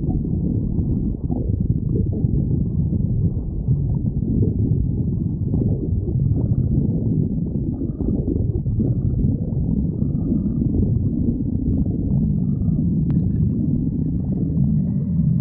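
Human stomach growling: a continuous low rumble, with faint higher whining tones in places.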